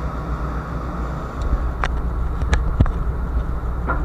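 Steady low rumble of a ship's deck, with a few short sharp clicks around the middle and one more near the end.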